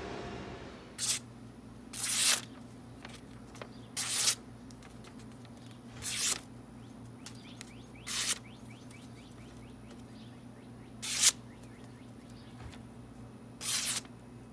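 Paper being sliced by a W2 high-carbon steel tanto blade: seven short hissing cuts, one every second or two, over a low steady hum.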